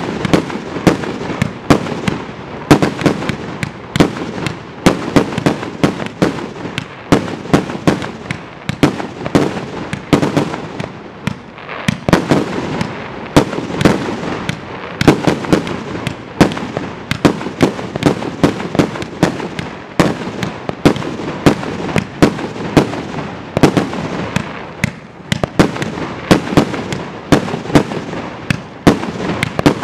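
Dun Pai 'Staying Power' 200-shot compound cake firing continuously: vertically launched colour report shells, a rapid uneven run of sharp bangs several a second over a steady noisy haze.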